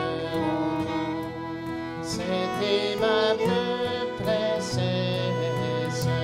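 Traditional Québécois fiddle tune: a fiddle bowing the melody over a strummed acoustic guitar accompaniment.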